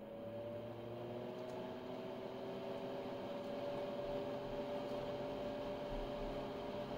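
Cooling fan of a 1978 Nicolet 1170 digital oscilloscope spinning up as its supply voltage is dialled up: a whine that rises slowly in pitch and then holds steady, growing gradually louder over a low hum.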